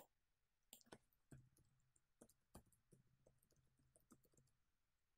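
Faint clicking of computer keyboard keys as a web address is typed, a few separate keystrokes at first, then a quick run of key clicks from about a second in until near the end.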